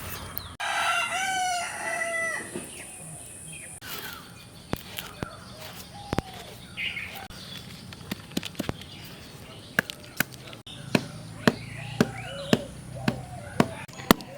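A rooster crows once, a long call lasting about two seconds near the start. Faint chicken calls and scattered sharp knocks follow, and in the last few seconds the knocks come regularly, about two a second.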